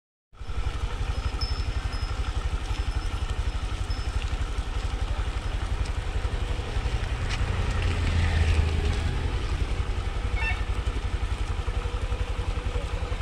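A small engine running steadily at low speed, an even, rapid low throb that grows a little louder about eight seconds in.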